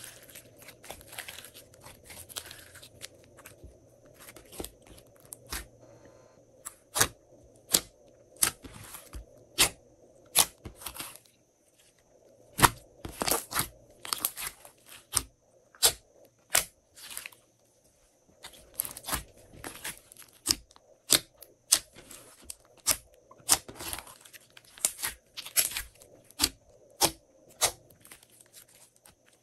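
Glossy slime being squeezed and stretched by hand, giving a string of sharp, irregular clicks and pops, about one or two a second, with a short lull near the middle.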